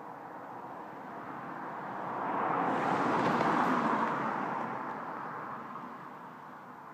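A car driving past: a swell of tyre and road noise that builds for about two seconds, is loudest midway and then fades away.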